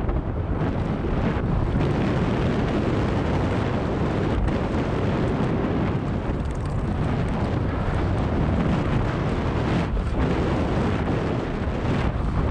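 Wind buffeting the camera's microphone on a fast mountain-bike descent, with the tyres rumbling over a dirt trail. It is a steady loud rush with no break.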